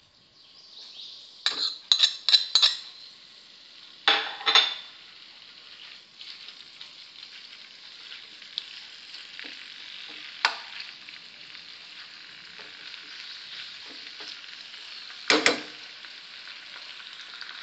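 Minced meat sizzling in hot oil in a frying pan, a steady hiss that begins as the meat goes in. Sharp clinks of a spoon and plate against the pan come several times, the loudest near the end.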